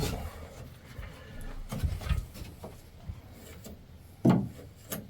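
Scattered light knocks and rubbing of timber and plasterboard being handled while ceiling sheets are fitted.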